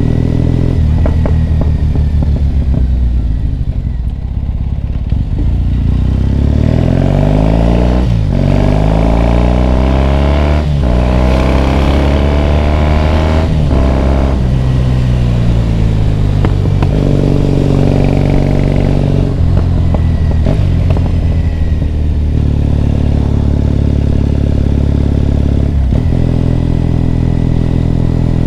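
Triumph Bonneville T100's parallel-twin engine under way, its pitch rising and falling several times as the bike accelerates and eases off. There are a few brief breaks in the sound that fit gear changes.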